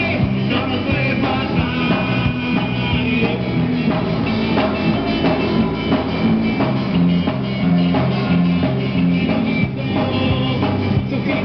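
Live rock band playing: electric bass and guitar with keyboard over a steady drum beat.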